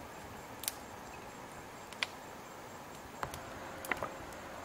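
A few sharp, scattered snaps and knocks over a steady outdoor background: a small twig fire crackling, and river stones knocking as they are moved beside it, two knocks coming close together near the end.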